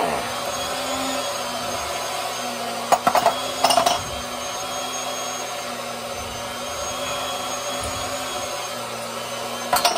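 Small electric pump running steadily with a whir as it pumps the water heater tank down. A few short clanks of hand-tool work on the pipe fittings come about three seconds in and again near the end.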